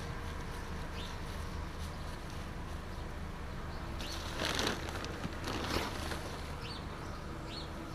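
Steady low outdoor background hum with two brief rustling noises about halfway through and a few faint, short high chirps, likely small birds.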